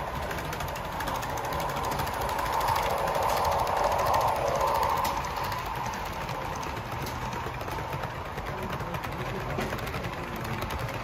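HO-gauge model trains running on the layout's track: a steady rattling run with rapid fine clicks, swelling louder from about two to five seconds in.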